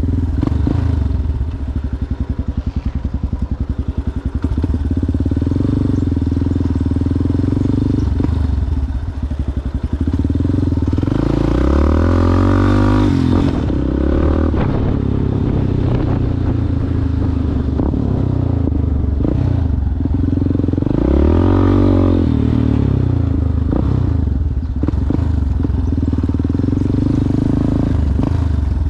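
Yamaha Ténéré motorcycle with an aftermarket Coyote exhaust, running under way off road. The engine holds a steady pulse and revs up and back down twice, about midway and again near two-thirds of the way through.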